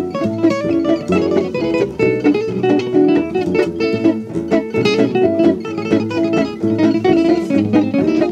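Acoustic guitar music, a busy run of plucked and strummed notes with a steady beat.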